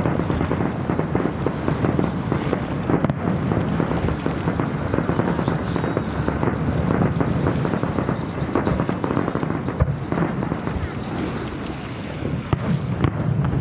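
Aerial fireworks show: shells bursting in quick succession, a dense, unbroken run of booms and crackles with heavy low rumble.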